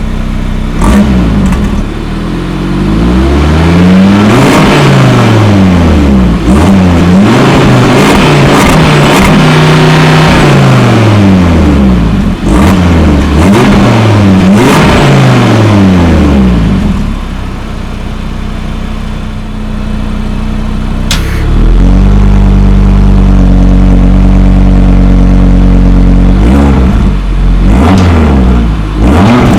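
Audi RS3 (8Y, 2022) 2.5-litre turbocharged inline five-cylinder revved repeatedly through its exhaust, each rev rising and falling in pitch. In the second half it holds a steady, loud speed for several seconds before more revs near the end.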